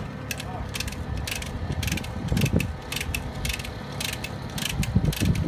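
Hand ratchet wrench clicking, a few clicks a second, as it is worked back and forth on a fastener of a Crusader marine engine.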